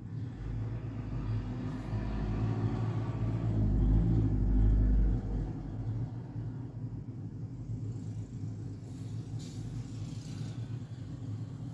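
A low rumble builds over the first few seconds and is loudest about four to five seconds in. It then drops off suddenly, leaving a steady low hum.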